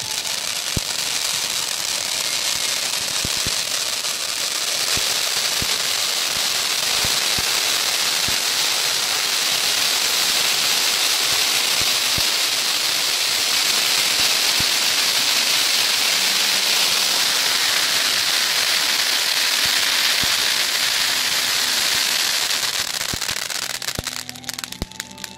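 Fountain fireworks, ground fountains and one held up on a pole, spraying sparks with a steady hiss sprinkled with small sharp crackles; the hiss fades away near the end as they burn out.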